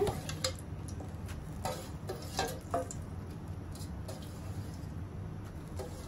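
A wok of fish curry cooking under a heap of raw spinach leaves, giving off a few small irregular pops and ticks over a steady low hum.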